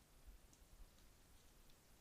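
Near silence: faint steady background hiss with a few faint, soft ticks.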